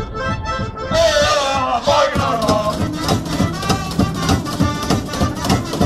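Live busking band: melodica-led reed melody over a strummed small acoustic guitar and a cardboard box drummed for the beat. About a second in, one tune ends and the next starts louder, with a steady drum beat joining shortly after.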